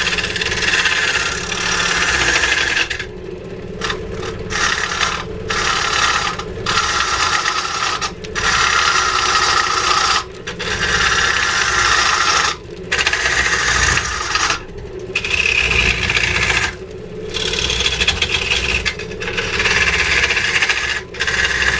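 A hand tool scraping and cutting into wood in repeated strokes of a second or two each, with short breaks between strokes.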